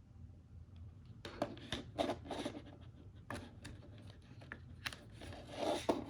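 Irregular scratching, rustling and clicking handling noises, with a louder rustle near the end.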